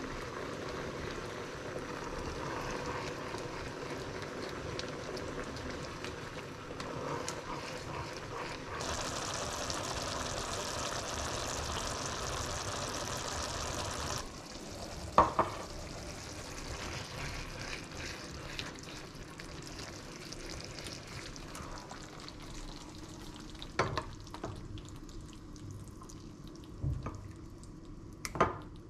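Tomato and mushroom meat sauce sizzling in a frying pan as it is stirred with a spatula, the sizzle louder for several seconds in the middle. A sharp clack of the spatula on the pan about halfway, and a few more knocks near the end as the sauce is scooped out of the tilted pan into a bowl.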